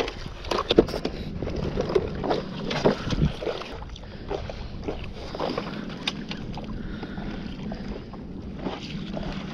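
Wind on the microphone and water moving against a paddleboard, with scattered short knocks and clicks in the first few seconds.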